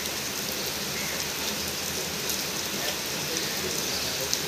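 Heavy rain falling steadily on roofs and a street, with scattered sharper drop ticks and one louder tick near the end.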